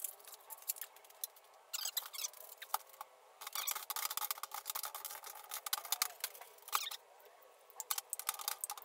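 Small hard plastic cabinet-leg parts clicking and rattling as they are handled and fitted together, in bursts of rapid clicks with short pauses between them.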